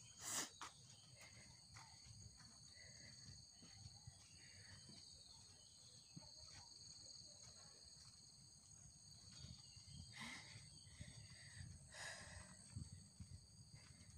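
Insects buzzing steadily in several high tones, with footsteps on a dirt trail underneath. A few louder scuffs or knocks come just after the start and again near ten and twelve seconds in.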